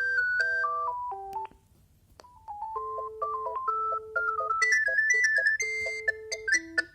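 Alcatel One Touch 320 mobile phone playing its built-in ringtones. One electronic tune ends about a second and a half in, and after a short pause another begins: a stepped melody over a lower accompanying line.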